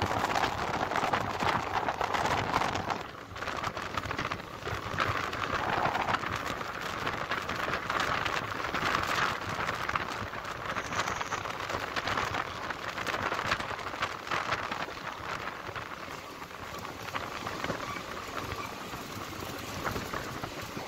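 Running noise of a moving passenger train heard at an open coach door: a steady rush of wind and wheels on the rails, with constant fine rattling.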